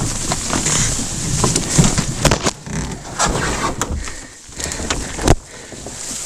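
Branches and foliage rustling and scraping across a close-mounted camera as someone pushes through dense brush, with repeated sharp snaps and knocks; the loudest knock comes about five seconds in.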